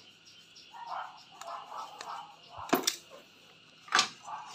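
Cordless power tools being handled and set down on a tiled floor, with two sharp knocks, one near the middle and one near the end.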